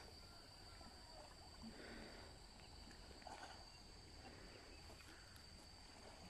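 Near silence: faint outdoor ambience, with a steady faint high tone and a few soft faint sounds every second or two.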